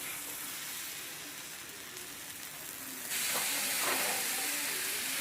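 Chocolate sauce sizzling on a smoking-hot sizzler tray, a steady hiss that jumps louder about three seconds in.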